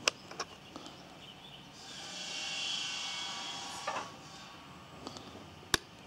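Small sharp clicks from a hand-held RC transmitter being handled and switched on, about half a dozen scattered through, with a faint high hiss swelling and fading in the middle.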